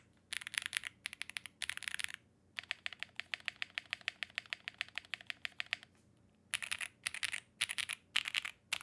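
Typing on a FinalKey V81 Plus, a gasket-mounted aluminium 75% keyboard with a polycarbonate plate, fitted with clacky Owlab Neon switches. Short bursts of keystrokes give way to about three seconds of fast, evenly spaced keystrokes, then more short bursts near the end.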